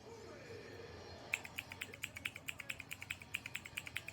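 Mechanical keyboard switches in a CNC-machined brass two-key fidget toy being pressed fast, giving a rapid run of sharp clicks, about nine a second, that starts about a second in.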